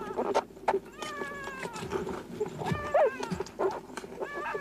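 Newborn dingo pups whining and squealing in the den: a series of short high cries that fall in pitch, the loudest about three seconds in.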